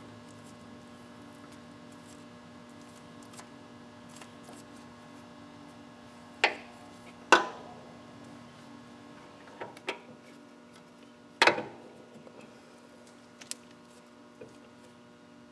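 A hand grease gun being worked on the band saw's main pivot grease fitting: a few sharp, separate metal clicks and clacks several seconds apart, the loudest a pair in the middle and a double click about two-thirds through, over a faint steady hum.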